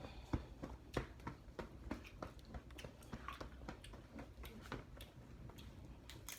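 Close-up eating sounds of crab: chewing and biting, with irregular sharp clicks and crackles.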